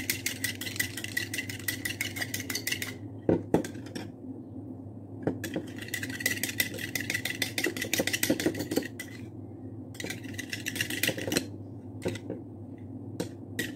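Blue plastic spoon stirring blended aloe vera gel in a small bowl, scraping and clicking against the sides in quick strokes. It comes in bursts of a few seconds, broken by short pauses and a few single knocks. A steady low hum runs underneath.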